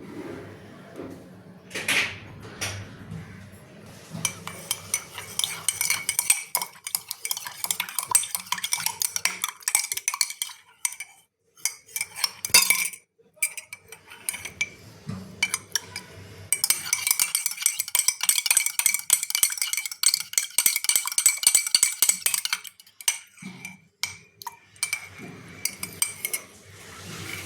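A metal spoon clinking rapidly against a metal vessel, as in stirring. It comes in two long spells of quick clinks that carry a steady ringing tone, with a few separate knocks and short quiet gaps between them.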